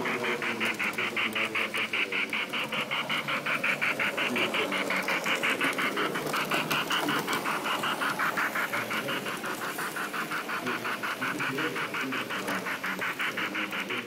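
Model train running on a layout track, with a rapid, even pulsing several times a second, over a low murmur of voices.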